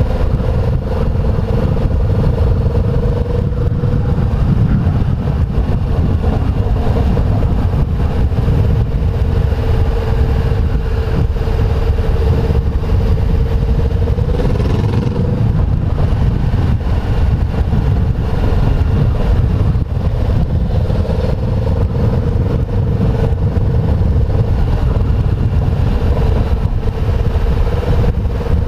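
Honda CBR500R's parallel-twin engine running steadily at low road speed, over a heavy low rumble of wind and road noise. Its pitch rises briefly about halfway through.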